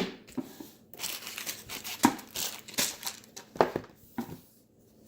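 Board game packaging being torn open and crumpled: a sharp click, then about three seconds of irregular crinkling and tearing that stops near the end.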